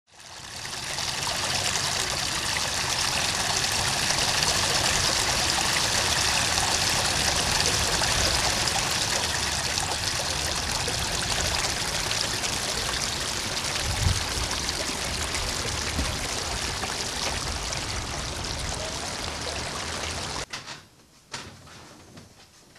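Steady hiss of water, fading in at the start, with a single thump about two-thirds of the way through; it cuts off abruptly near the end, leaving quiet room sound.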